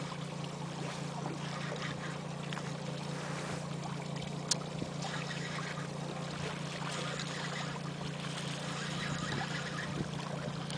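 Boat's outboard motor running steadily, a low even hum under wind and water noise, with a single sharp click about four and a half seconds in.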